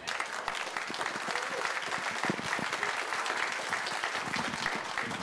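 Audience applauding: many hands clapping in a dense patter that starts abruptly and holds steady.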